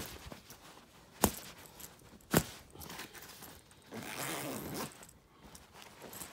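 The metal front zipper of an M65 field jacket being worked by hand: two sharp clicks a little over a second apart, then the zipper rasping along for about a second.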